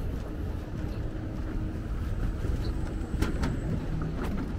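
Steady low rumble of city traffic. Two sharp clicks come about three and four seconds in.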